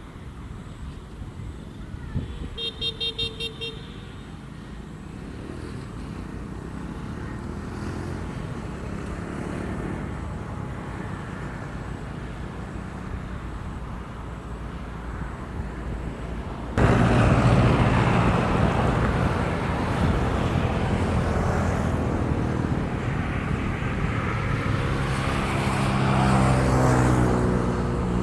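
Road vehicle noise: a short pulsing horn toot about three seconds in, then traffic noise that suddenly gets much louder about seventeen seconds in, with an engine's pitch rising near the end.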